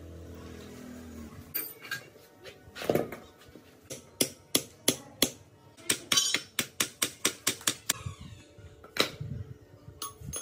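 Repeated sharp metallic taps and knocks, with a quick run of strikes at about three to four a second in the middle. A steady low hum at the start stops after about a second and a half.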